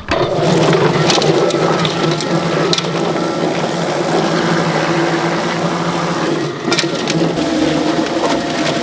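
Electric drum poultry plucker running steadily with a turkey tumbling inside: a constant motor hum under a noisy churning of the bird against the rubber fingers, with a few sharp knocks.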